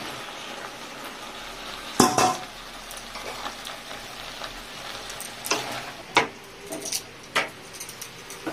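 Chopped vegetables frying in hot masala in an aluminium kadai with a steady sizzle. A loud sharp metal clank comes about two seconds in, and a wooden spatula knocks against the pan several times as the mix is stirred.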